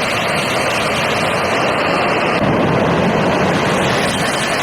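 Steady rushing roar of a train sound effect, held at one level without a break.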